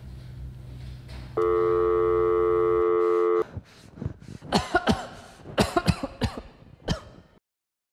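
A loud, steady electronic tone lasting about two seconds over a low hum, then a man in a face mask coughing hard several times in quick bursts.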